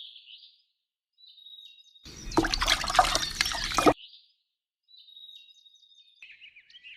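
A couple of seconds of splashing, pouring water in the middle, with faint high bird chirps before and after it.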